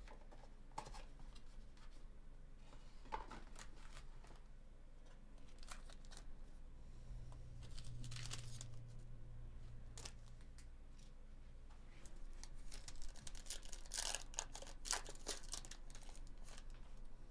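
Wrapper of a Bowman Chrome baseball card pack being torn open and crinkled by hand: faint scattered crackles, busier over the last few seconds.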